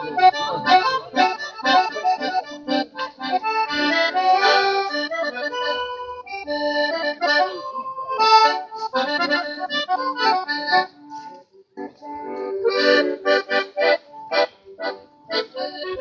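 Piano accordion playing a lively tune of melody over chords. It breaks off briefly about three-quarters of the way through, then comes back with short, detached chords.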